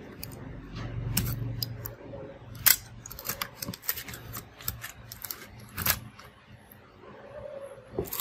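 Irregular small clicks and taps of fingers handling a laptop's internal cables and plastic parts during disassembly, with a brief low rumble about a second in.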